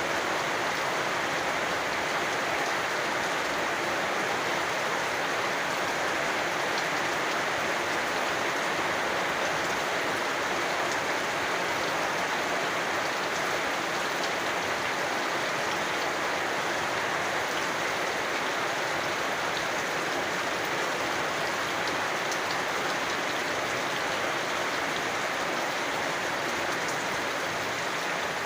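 Steady rain falling and pattering on surfaces, an even hiss with scattered faint drop ticks.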